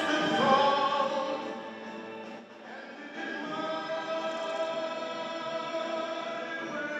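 Choir singing a slow sacred piece with long sustained notes, dipping briefly about two and a half seconds in before settling on a long held chord.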